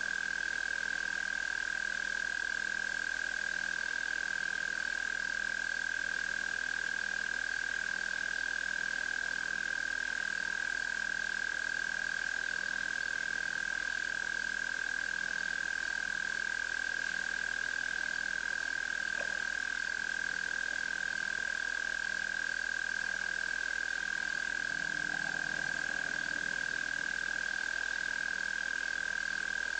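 Frogs calling at night at a waterhole: a steady, unbroken high-pitched trill with a low croak repeating at an even rhythm underneath.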